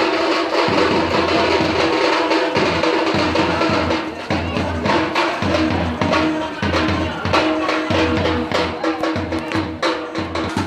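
Drums beaten in a fast, dense rhythm over a held, droning musical line.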